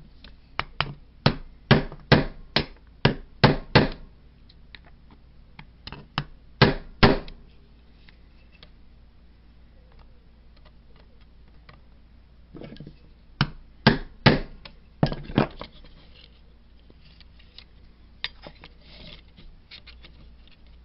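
Hammer blows on a makeshift metal punch, a rod ground down on a bench grinder, peening over the pin of a Lionel toy-train coupler that rests on a wooden block. Sharp taps come in bursts: a quick run of about ten at first, three more a few seconds later, about six further on, then a few lighter taps.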